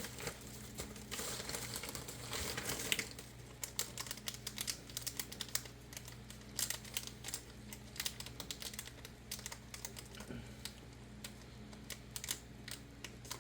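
Plastic packaging crinkling for the first few seconds, then a long run of light, irregular clicks and taps as small packets of replacement springs are handled.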